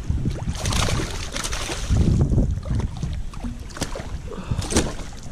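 Water splashing and sloshing around a kayak in a few irregular bursts, with wind rumbling on the microphone.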